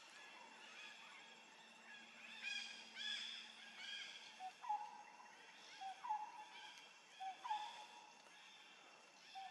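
Faint short animal calls, each a brief pitched note that rises slightly, repeating about every second or so, with a run of higher twittering chirps in the first half.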